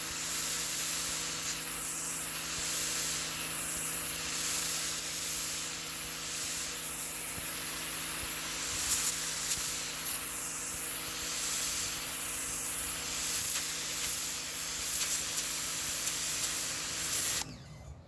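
Sun Joe SPX 2000 electric pressure washer running: the steady hum of its motor and pump under the loud hiss of the water jet spraying. The hiss shifts in tone every couple of seconds, and the machine cuts off suddenly near the end.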